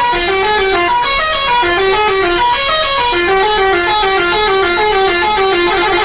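Bus telolet horn, a set of electrically switched air-horn trumpets, playing a fast tune of short stepped notes in two parts, loud and unbroken.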